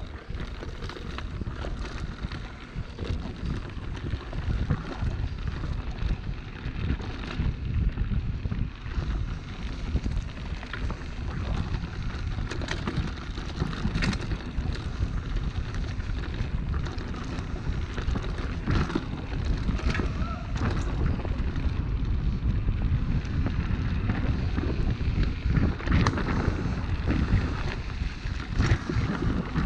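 Wind buffeting the microphone: a steady low rumble with scattered clicks and knocks.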